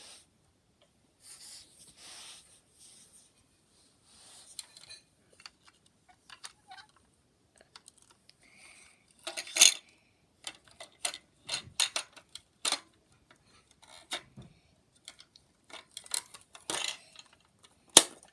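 Irregular sharp clicks and light clatter of small hard objects being handled. The clicks are sparse at first and come thicker in the second half, with one sharp loud click near the end.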